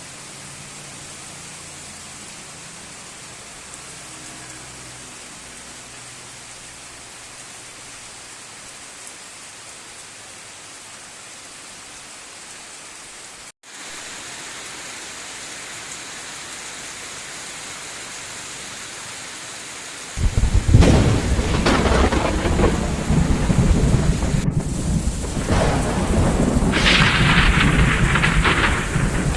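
Heavy tropical rain pouring as a steady hiss. About twenty seconds in it suddenly grows much louder, with a deep, churning rumble under the downpour.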